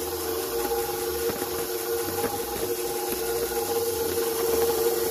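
KitchenAid Professional HD stand mixer running on a low speed, its wire whisk beating hot baked sweet potato in a steel bowl: a steady motor whine with a few faint knocks from the whisk and bowl.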